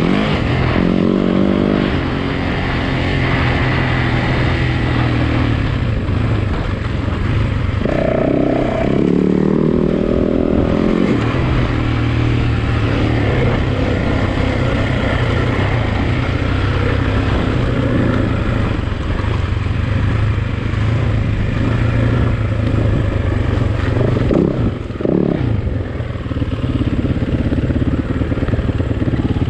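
Yamaha WR-F four-stroke single-cylinder enduro motorcycle being ridden, its engine note rising and falling as the throttle opens and closes, with several sharp revs.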